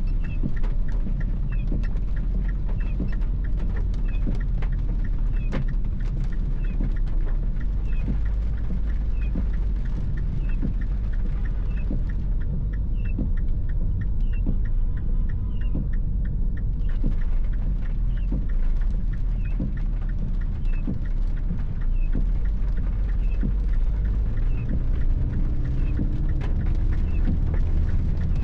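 Inside a Mini Clubman driving in the rain: a steady low engine and road rumble, with scattered ticks of rain on the car and a small high chirp repeating about every 0.7 seconds. Near the end the engine note rises a little.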